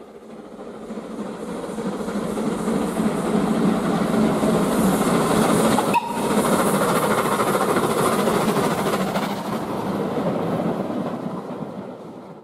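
Steam locomotive hauling a train of passenger coaches past on the track. It grows louder as it approaches, stays loud as it passes with a brief dip about halfway, and falls away near the end.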